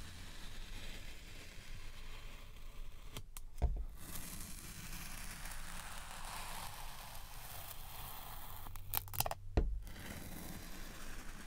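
Metal ice-cream scoop scraping and cutting through packed fine sand, a soft gritty crunching and rustling. It is broken twice by a brief click and thump, about three and a half seconds in and again near nine and a half seconds.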